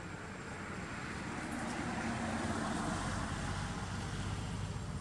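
A motor vehicle's engine going by close at hand, growing louder toward the middle, with a fast low engine throb that carries on to the end.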